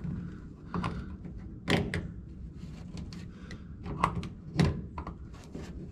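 Hand work with tools and parts: a series of irregular knocks and clicks, the two loudest about four and four and a half seconds in, over a low steady hum.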